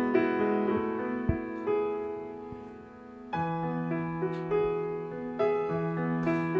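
Soft background piano music with held notes. It thins out and grows quieter around the middle, then picks up again with a new set of notes.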